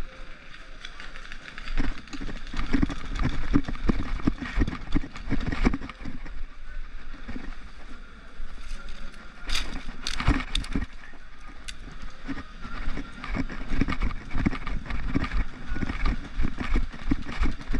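Rustling and knocking movement noise on a paintball player's helmet camera as the player moves about the field, with a few sharper cracks about ten seconds in.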